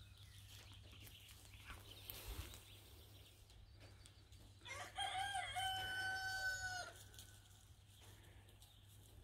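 A rooster crowing once, about five seconds in: a single call of about two seconds that wavers at the start and then holds steady.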